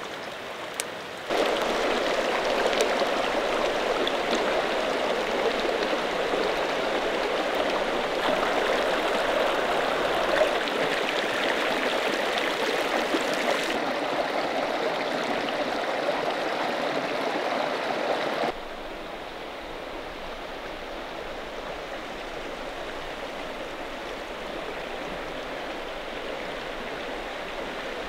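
Mountain creek water rushing steadily over rocks. It jumps louder about a second in and drops quieter about two-thirds of the way through.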